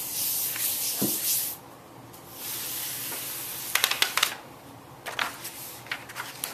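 Hand rubbing the back of a sheet of paper laid on a gel printing plate, a papery rubbing hiss, then the paper crackling as the print is peeled off the plate about four seconds in, with some rustling after.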